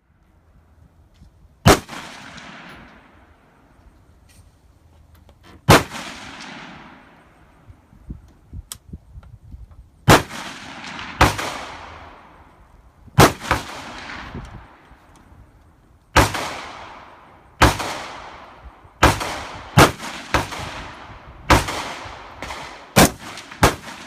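A series of gunshots, about fifteen in all, each followed by a long echoing tail. They come several seconds apart at first, then faster from about halfway on.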